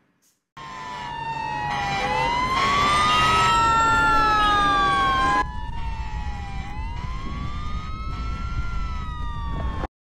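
Emergency-vehicle sirens: two overlapping wails slowly rising and falling in pitch over a low rumble. They start about half a second in and grow louder, drop in level about five seconds in, and cut off abruptly just before the end.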